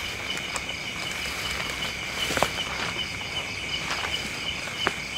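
A steady outdoor chorus of insects such as crickets, a high trill that pulses evenly a few times a second, broken by a few sharp clicks, the loudest about halfway through.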